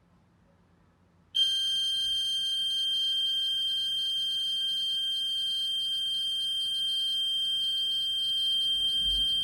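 Open-door alarm's piezo buzzer sounding a steady, shrill, unbroken tone that switches on suddenly about a second in, signalling that the door is open.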